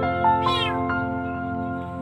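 A cat meowing once about half a second in, a short call falling in pitch, over background music with held notes.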